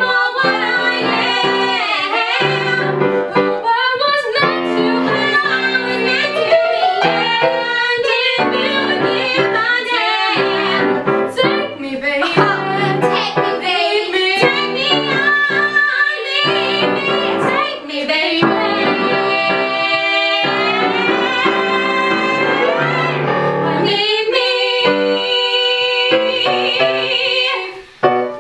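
Two women singing a show-tune duet in full voice over piano accompaniment, with long held notes, the song closing a little before the end.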